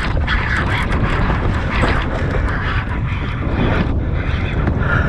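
Wind buffeting the microphone, with water splashing as a hooked musky thrashes at the side of the boat.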